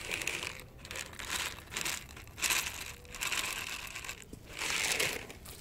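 Plastic cat-food packet crinkling in several short bursts as dry kibble is shaken out onto concrete.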